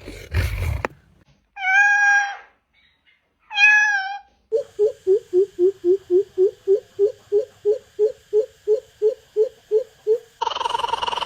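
Bird calls: after a deep rumble that stops about a second in, two short wavering mewing calls, typical of a Eurasian jay. Then a long even series of deep hooting notes, about three a second, typical of a greater coucal. A different, noisier call begins near the end.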